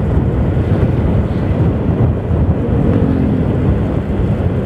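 Steady wind rush and engine and road rumble from a motorcycle being ridden, picked up by its action camera's microphone, with a faint engine tone from passing traffic about three seconds in.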